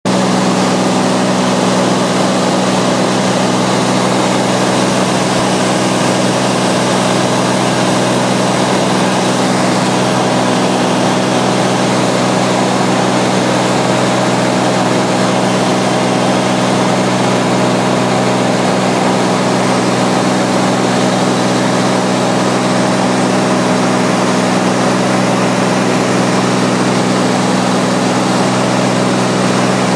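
Cabin noise of a small high-wing propeller plane in flight: the engine and propeller drone steadily with a few constant low hum tones over a rushing hiss, unchanging throughout.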